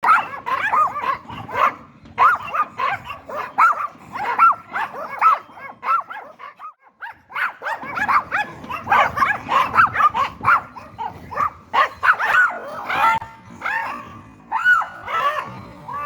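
Yorkshire terrier barking in rapid, high-pitched yaps, several a second, with a short pause about seven seconds in.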